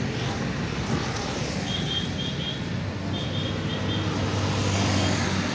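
Road traffic: motor vehicles running along the street, one engine hum growing louder as a vehicle comes close about four to five seconds in. Two short runs of quick high chirps sound in the middle.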